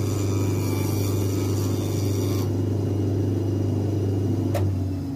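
Electric shoe finishing machine running with a steady hum while a leather sole is held against its cutter; the cutting hiss stops abruptly about halfway through as the sole is drawn away. A single click near the end, and the hum stops right at the end.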